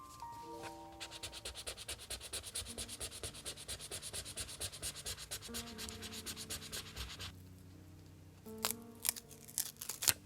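Paper being rubbed rapidly back and forth, about six strokes a second for some six seconds. Then a few sharp taps or clicks near the end.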